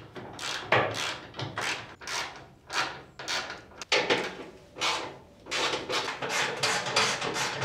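A paintbrush scrubbing paint onto sheet metal in quick, uneven strokes, about two a second.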